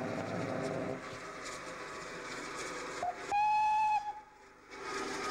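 Steam whistle of the Great Western Railway King-class locomotive King Edward I: about three seconds in, a quick short toot, then one steady high whistle blast lasting under a second, over a steady background of noise.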